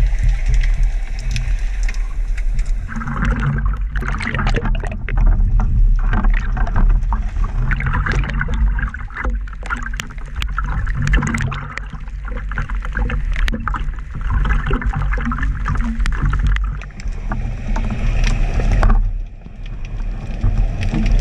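Water sloshing and rushing against an underwater action camera, with a constant low rumble. In the long middle stretch many sharp splashes and knocks come over the rumble as the water breaks at the surface; near the end the sound drops back to the steadier underwater rumble.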